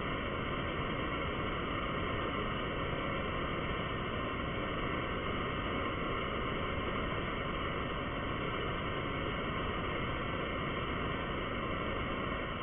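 Steady, muffled static hiss with no high end, holding at an even level throughout.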